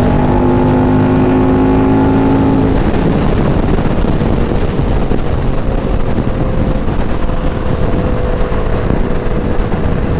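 Sport motorcycle engine running at a steady pitch while riding, then wind noise on the microphone takes over after about three seconds, with the engine faint beneath it.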